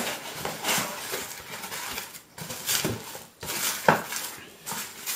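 Cardboard shipping box being handled and opened by hand: irregular rustling and scraping of the cardboard flaps and foam packing, with one sharp click just before four seconds in.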